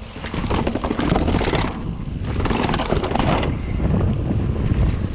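Mountain bike clattering and jolting down a flight of steps, in two runs of rapid knocks and rattles, with wind noise on the microphone.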